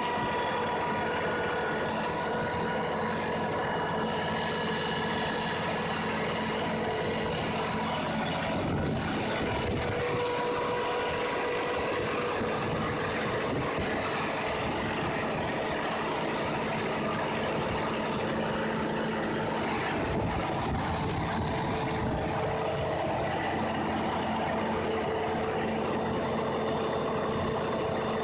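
Standby generator's engine running steadily and loud during a manual start-up test.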